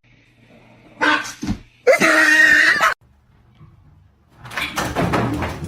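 A dog vocalizing: a short sound about a second in, then a pitched cry lasting about a second, and a noisier sound near the end.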